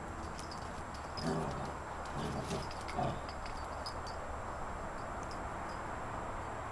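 Irish setter puppies playing on paving slabs: light clicks and scuffs, with three short soft sounds in the first three seconds, over a steady background hiss.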